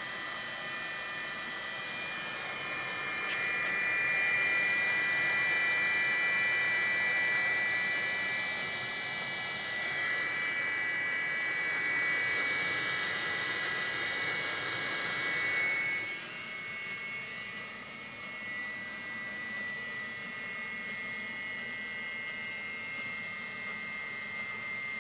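Webasto fuel-fired water heater running: a steady whine over a rushing noise. It grows louder a few seconds in and drops suddenly about two-thirds of the way through.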